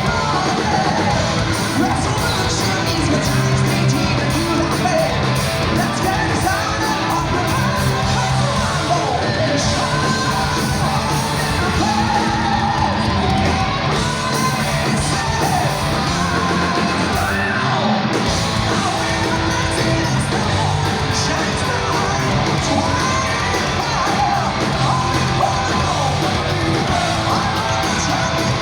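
Heavy metal band playing live: distorted electric guitars, bass and drums under high, shouted and sung vocals, running loud and without a break.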